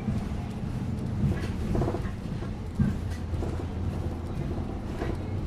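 Bus interior ambience while riding: a steady low engine and road drone, with faint muffled voices of other passengers and a few small knocks.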